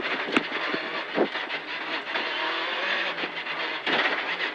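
VW Polo R5 rally car at speed, heard inside the cockpit: its turbocharged 1.6-litre four-cylinder engine and loud road and tyre noise, with a few sharp cracks.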